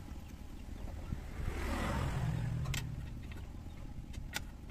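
A vehicle passing by, its noise swelling to a peak and fading over about two seconds above a steady low rumble, followed by a few sharp clicks.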